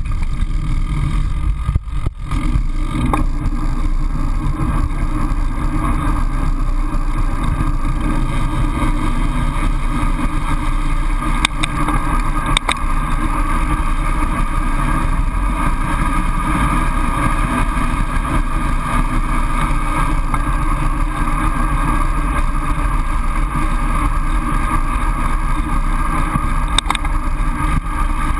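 Steady rush of wind buffeting a bike-mounted GoPro's microphone as a road bike coasts fast downhill, with a few short sharp clicks.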